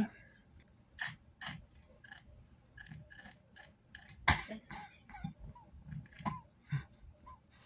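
Domestic cat chattering through a yawn: a scattered run of short clicks and small chirps from its mouth, the loudest about four seconds in. This is the excited chatter a cat makes at prey it is watching, here a laser-pointer dot, while it is very sleepy.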